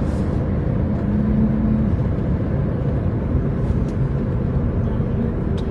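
A car driving at steady speed: continuous low road rumble with a faint engine hum.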